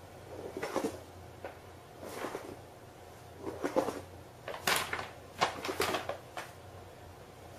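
Paper bag rustling and crinkling in irregular bursts as a cat moves around inside it, busiest in the second half.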